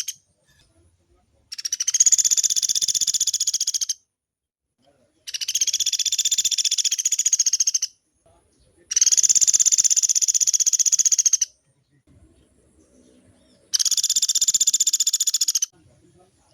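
Pelatuk beras woodpecker calling in long, very fast rattling trills, four of them, each about two seconds long, with short pauses between.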